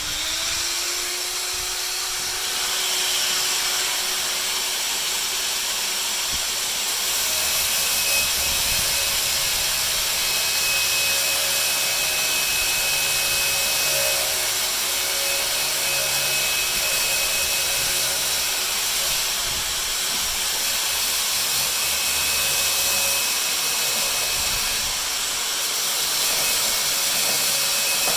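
Handheld electric power tool spinning up at the start, then running steadily as it cuts timber down to a scribed line.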